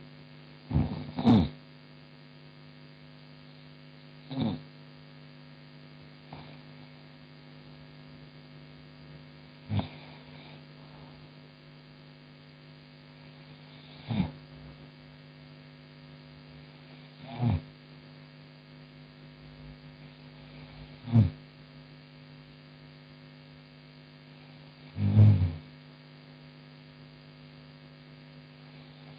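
A woman snoring in her sleep: about eight short snores a few seconds apart, a double one about a second in and a longer, deeper one near the end, over a steady electrical hum.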